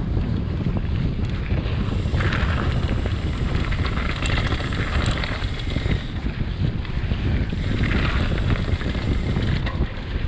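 Wind buffeting the microphone of a mountain biker descending fast, a steady low rumble with stretches of higher hiss from the tyres on the trail, about two, four and eight seconds in.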